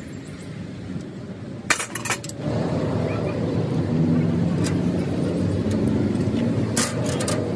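Metal hand tools clinking against the tractor engine in short clusters, about two seconds in, again near the middle, and near the end. Under them an engine runs steadily and gets louder about two and a half seconds in.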